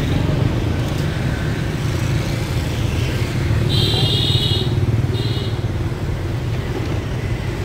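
Motorbikes passing on the street with a steady engine rumble, and a horn beeping twice about four and five seconds in: one longer beep, then a short one.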